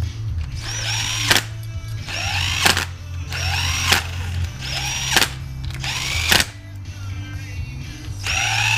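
Cordless power driver spinning bolts down on a 4L80E transmission plate: a rising whine as the motor speeds up, each run ending in a sharp click, about five times, roughly every second and a quarter.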